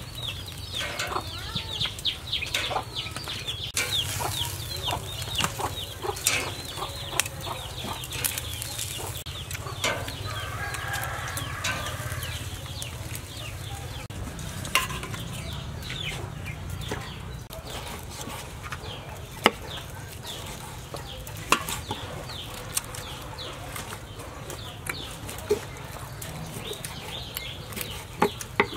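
Metal tongs clicking and scraping on a grill grate and a metal tray, with chickens calling throughout in short high chirps. A couple of sharper knocks near the end as a knife cuts meat on a wooden board.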